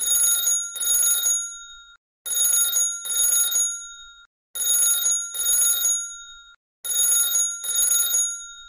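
Telephone ringing in a double-ring pattern: two short rings, a pause, then two more, four times over.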